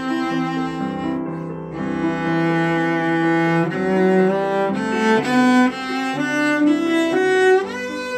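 Background instrumental music: a slow melody of sustained notes that change pitch every half second to a second.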